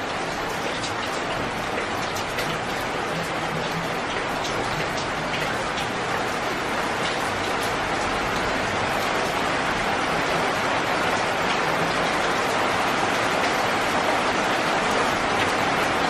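Steady rain, with single drops pattering distinctly in the first few seconds, then growing slowly louder and denser into an even hiss.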